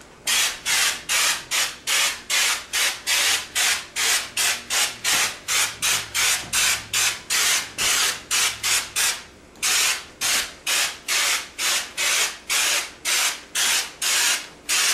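Orange peel wall texture being sprayed onto a drywall patch in quick pulses, about three hissing bursts a second, with a short break about nine seconds in.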